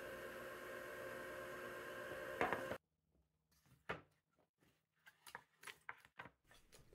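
Faint steady hum that cuts off abruptly under three seconds in, then near silence broken by a light knock and a few faint taps as notched wooden boards are handled and laid out on a workbench.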